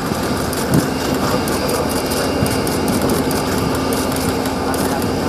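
Steady engine drone of aircraft or ground equipment running on an airfield apron, with a constant low hum throughout.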